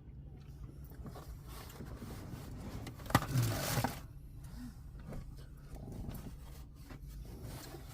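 Takeout food packaging being handled between bites: a sharp click about three seconds in, then about a second of rustling and scraping, over a steady low hum.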